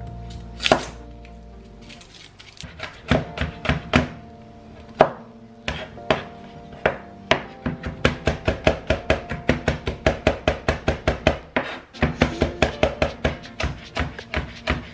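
Knife chopping food on a cutting board: scattered chops at first, then quick even chopping at about four strokes a second from about halfway through, over background music.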